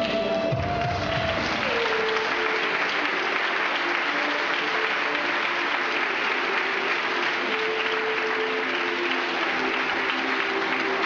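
Audience applause builds about two seconds in and carries on over dance music that keeps playing underneath.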